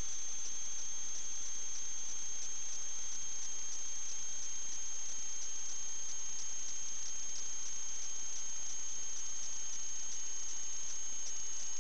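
A steady high-pitched whine over a constant hiss, with a fainter lower tone beneath it that sags slightly in pitch.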